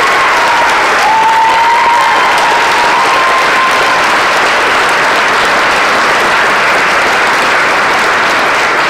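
Large audience applauding steadily, with a single held high tone from somewhere in the crowd over the first few seconds.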